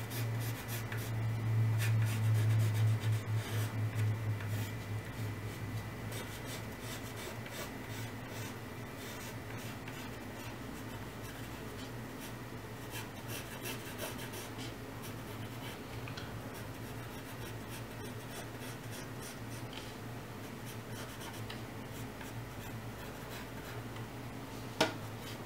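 Pencil scratching across paper in many short sketching strokes, under a low hum that is loudest in the first few seconds. One short sharp sound comes near the end.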